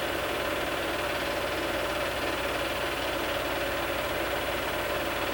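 Steady mechanical whirring and hum of a home-movie film projector running.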